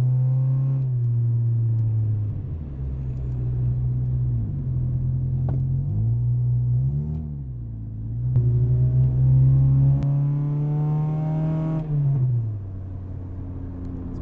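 Car engine heard from inside the cabin while driving: the engine note drops about two seconds in, then climbs steadily under acceleration from about eight to twelve seconds in before falling away as the throttle lifts. A couple of short sharp pops cut through near six and ten seconds in, from the car's backfiring exhaust.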